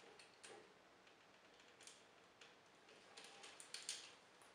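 Faint, scattered clicks and taps of a plastic transforming action figure being worked by hand, its fold-out hands being prised from their grooves with fingernails. The clicks come closer together from about three seconds in.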